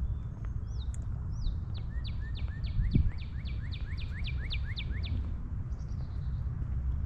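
A songbird singing: a few whistled notes, then a quick run of about a dozen sharply down-slurred high notes, about four a second, lasting some three seconds. Under it runs a steady low rumble, and a single dull thump comes about three seconds in.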